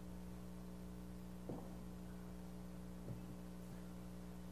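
Steady electrical mains hum in the audio system, with two faint short knocks about a second and a half and three seconds in.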